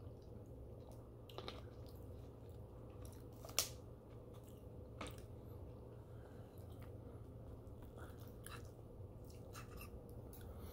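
Faint chewing of food, with scattered small crunches and clicks; the sharpest click comes about three and a half seconds in.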